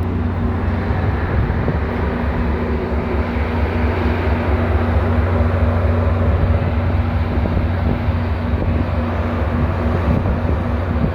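New Mexico Rail Runner train's diesel locomotive running: a steady low rumble with a constant hum.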